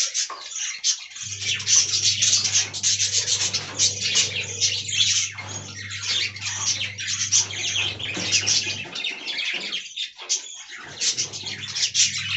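Budgerigars chattering and chirping in a rapid, continuous stream of high warbles and squawks, over a low steady hum that drops out briefly near the end.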